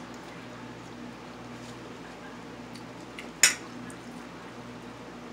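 Small table sounds of a meal: a few faint ticks as a cooked shrimp is peeled by hand, and one sharp click about three and a half seconds in, over a low steady hum.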